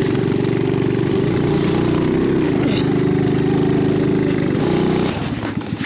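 Coolster GK-6125A mini jeep's small single-cylinder engine running on steady throttle, labouring up a snowy slope while being pushed. Its pitch wavers slightly, and it dips and fades near the end before picking up again.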